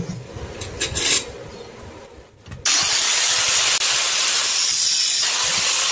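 A few light metal clinks as steel parts are handled, then an angle grinder switches on about two and a half seconds in, whining up to speed and running steadily and loudly.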